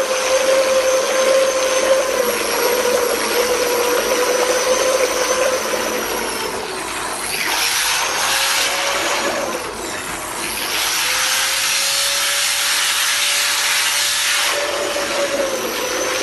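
A DYK handheld electric power tool running with its front end submerged in a tub of water: a steady motor whine over the noise of churning, splashing water. The motor's pitch sags slightly about halfway through, then picks up again.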